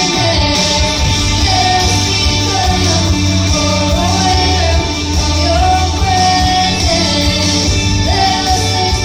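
Two girls singing a praise song into microphones over band accompaniment. The voices move in long held phrases that rise and fall above a steady bass line.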